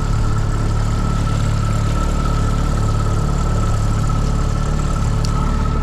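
Outboard motor of a small inflatable boat running steadily at slow trolling speed: a low engine drone with a steady high whine over it.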